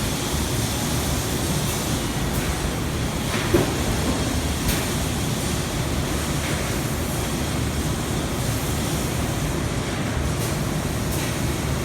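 CNC machine running through a job, a steady noise with a few faint clicks and one sharper click about three and a half seconds in.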